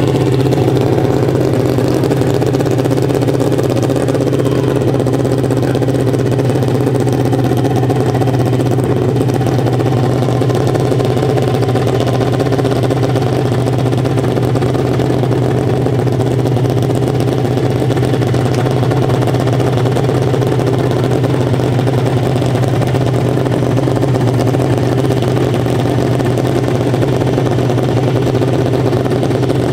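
Custom hillclimb motorcycle engine idling steadily, a loud, even drone with no revving.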